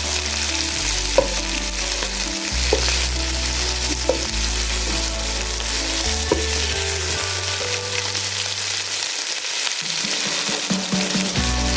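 Chicken pieces sizzling in hot mustard oil in a karahi while being stirred and roasted until they change colour, with a utensil clicking against the pan now and then.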